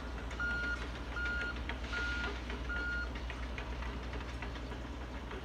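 Mini excavator's warning alarm beeping: four short, even beeps of one pitch, a little under a second apart, that stop about three seconds in, over the steady low drone of its engine, with a few faint knocks.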